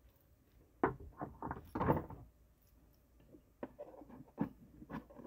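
Irregular soft knocks and rustling of objects being handled close to the phone's microphone, in two clusters, one about a second in and one in the second half.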